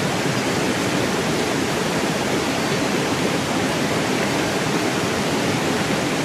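Steady rush of water as a bucket of water is poured into a water pump's top port to prime it before starting.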